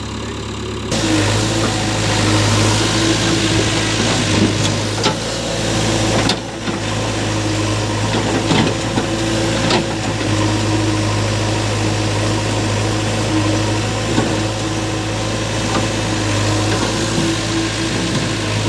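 Diesel engines of a JCB 3DX backhoe loader and a tractor running steadily at work, with scattered short knocks and clanks.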